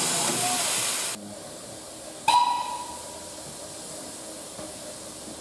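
Steam locomotive hissing steam loudly and steadily, cut off abruptly about a second in. About two seconds in comes a single sharp metallic clang that rings briefly and dies away.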